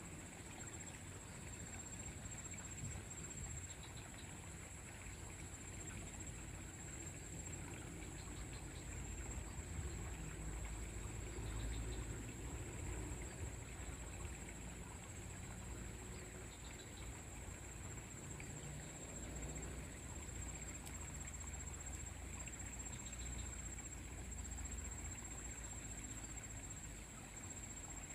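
Quiet outdoor ambience on a pond bank: a steady high-pitched whine, a few brief faint chirps every several seconds, and a low rumble that swells for a few seconds near the middle.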